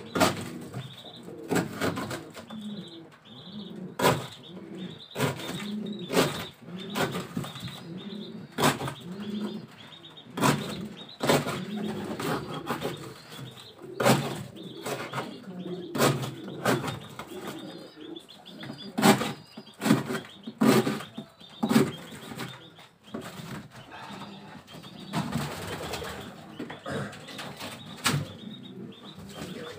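Pigeons cooing over and over, with frequent sharp flutters of wings and knocks as birds are handled and moved into a cardboard box.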